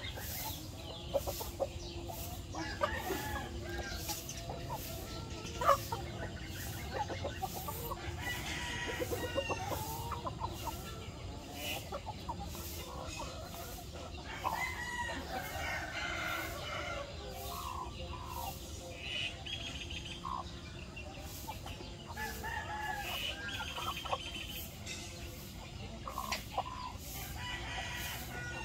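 A flock of chickens, hens and roosters, clucking and calling in short scattered calls as they feed. A single sharp tap comes about six seconds in.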